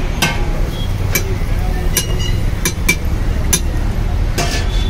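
Sharp metallic clinks of cooking utensils on a dosa griddle, about seven, irregularly spaced, over a steady low background rumble.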